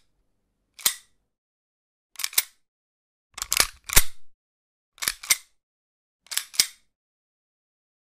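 Pistol cocking sound effects, one after another about every second and a half, each a quick pair of sharp metallic clicks. The one around three and a half to four seconds in is longer and louder, a run of several clacks.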